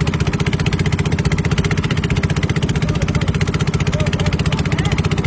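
An engine running steadily with a fast, even chug.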